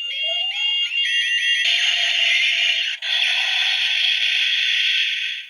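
Electronic sound effects from a Kamen Rider transformation belt toy. Rapid repeated electronic chirps play over a rising tone, then give way after about a second and a half to a loud, steady hissing blast that cuts off suddenly near the end.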